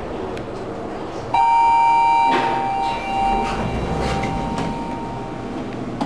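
Schindler elevator's arrival chime strikes once, a loud two-tone ding that rings on for a few seconds. The car doors slide open under it.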